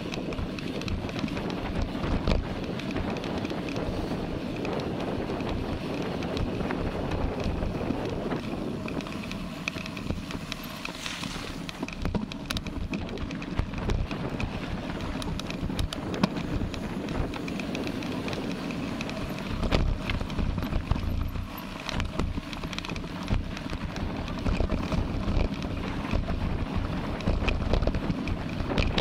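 Wind buffeting an action camera's microphone on a moving mountain bike, over steady rolling noise, with frequent short rattles and knocks from the bike on rough ground.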